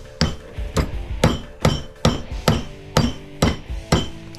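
Claw hammer striking a copper transformer coil clamped in a bench vise: a steady run of blows, about two or three a second, each with a short metallic ring, working the copper winding out of a light-fixture transformer for scrap.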